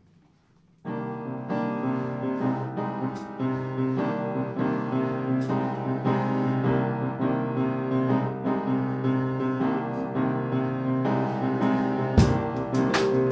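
Jazz piano starts abruptly about a second in, playing chords and a melody in a steady rhythm. Drums come in with sharp hits near the end.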